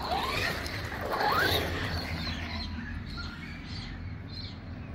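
MJX Hyper Go RC car's brushless electric motor whining as it accelerates, the whine rising in pitch twice, right at the start and about a second in, over a steady low rumble.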